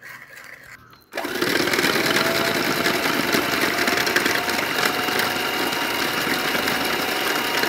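Electric hand mixer switched on about a second in, then running steadily with a high whine as its beaters whip instant coffee, sugar and water into a thick foam.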